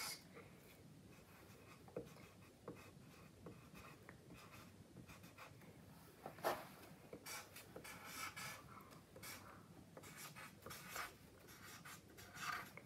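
Faint scratching of a marker pen writing on paper, in short strokes with pauses between them.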